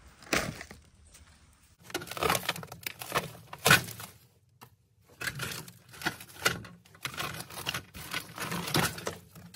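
Irregular rustling, scraping and light knocks of gloved hands rummaging through dry debris on an old car's rear floor, with a few sharper clicks and a short pause halfway through.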